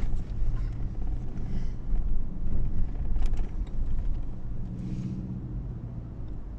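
An off-road SUV's engine running steadily with a low hum and rumble, with a couple of sharp clicks about three seconds in.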